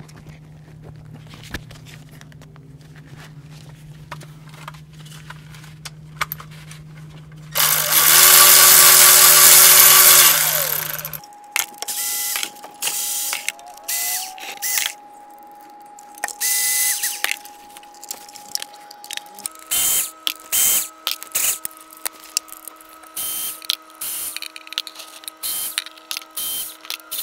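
Cordless electric ratchet spinning out the 10 mm fluid-pan bolts in a series of short bursts. The longest and loudest run, about three seconds, comes around eight seconds in. A steady background hum runs underneath.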